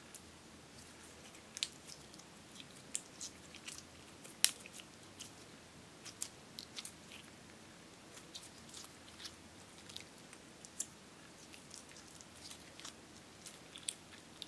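Clear slime with chunks of silver makeup mixed in, stretched and folded by hand, giving irregular sticky pops and crackles, with one sharper pop about four and a half seconds in.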